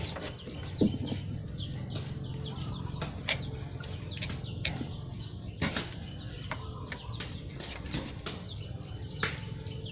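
Birds chirping over and over in short, quick, falling chirps, with a steady low hum underneath and a few sharp knocks.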